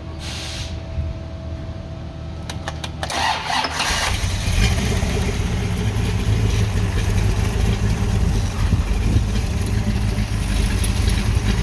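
Freshly rebuilt 1969 Ford 390 V8 with aluminum heads and a 302-2 cam starting up: a few clicks, then the engine catches about four seconds in and runs at a steady idle.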